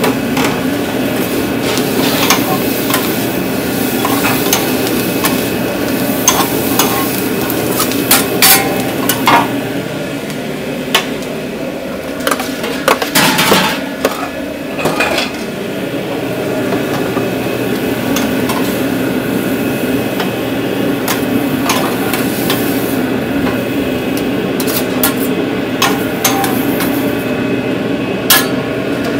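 Metal utensils clacking and scraping on a hot cooking surface while eggs and other food fry and sizzle, with a steady machine hum underneath. The knocks come in clusters and are loudest about a third and halfway through.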